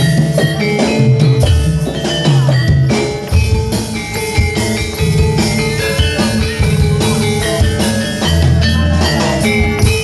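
Live jaranan accompaniment: a Javanese gamelan-style ensemble of hand drums and struck metal percussion playing a dense, driving rhythm over sustained ringing tones.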